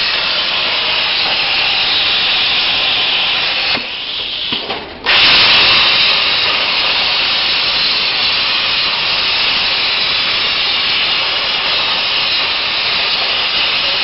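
CNC plasma cutting machine cutting sheet metal: a loud, steady hiss. About four seconds in it drops away for a little over a second, then comes back at its loudest and runs on steadily.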